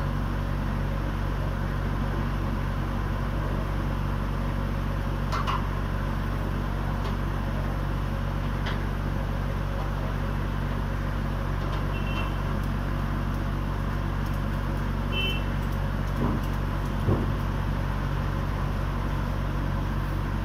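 Small flatbed truck's engine running steadily, driving the hydraulics of the Unic mini crane on its bed while the crane is worked. A few light metal clanks, the loudest about three-quarters of the way in, and two brief high chirps.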